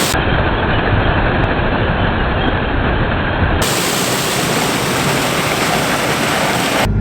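Claas Lexion 740 combine harvesting corn close by, a loud steady mechanical noise that changes abruptly twice as the shots cut.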